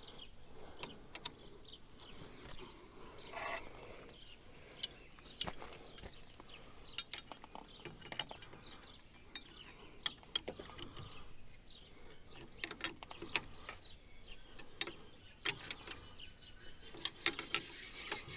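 Hand tools working on the metal fittings of a hydraulic hose on a compact track loader as the fitting is snugged up: scattered irregular clicks, ticks and metallic clinks.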